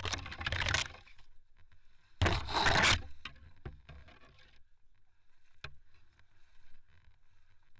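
Dry branches and reeds scraping and rustling against clothing and the camera, in two bursts about two seconds apart, followed by a few light cracks.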